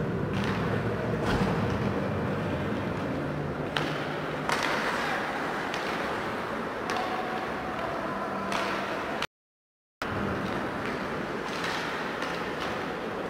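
Ice hockey game sounds in an arena: skates, sticks and puck over steady background noise, with several sharp knocks of the puck and players against the boards. The sound cuts out completely for under a second, about nine seconds in.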